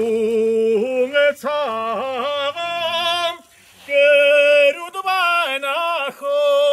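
A solo voice sings long held notes, linked by quick wavering melodic turns. The voice breaks off briefly about halfway through.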